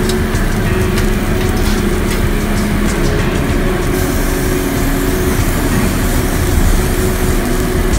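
Ribeye steaks sizzling on a charcoal grill, with fat popping and crackling in the flames through the first few seconds, then a steadier rushing hiss as the fire flares up around the meat.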